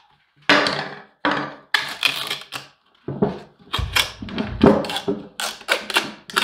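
Screwdriver prying and scraping at a subwoofer's cone and spider assembly, with a series of knocks and clatters as the tool and the speaker frame are handled on a wooden workbench. A heavier knock comes about four seconds in.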